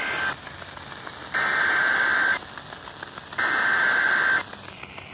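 Emergency Alert System SAME header data bursts: a harsh, buzzy two-tone digital screech sent in blocks of about a second with one-second pauses. The tail of one burst is followed by two more, with radio static hiss in the gaps.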